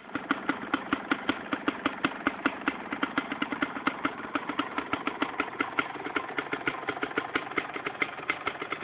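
Suzuki RMX250 single-cylinder two-stroke engine idling with a steady run of evenly spaced pops, on its first run after a complete top and bottom end rebuild.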